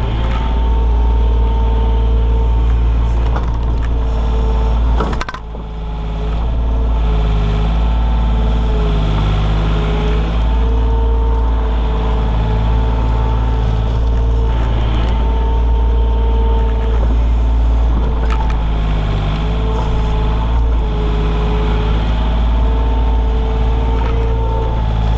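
Komatsu PC28 mini excavator's diesel engine running steadily at working revs, with a whine from the hydraulics that comes and goes as the boom and bucket work. A short knock and brief dip in the engine sound about five seconds in.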